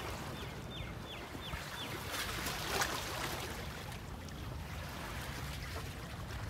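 Shoreline ambience: a steady low rumble with water lapping against a rocky breakwater, surging louder about three seconds in. A small bird gives a quick run of about six short, falling chirps in the first couple of seconds.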